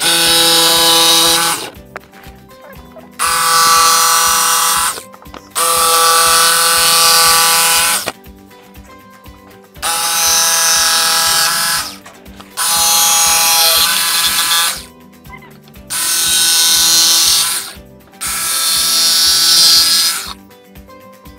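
Ryobi jigsaw cutting thin plywood in seven bursts of one to two seconds each: the motor runs with a steady whine and blade rasp, then stops between cuts. It is cutting out a window opening from drilled starter holes.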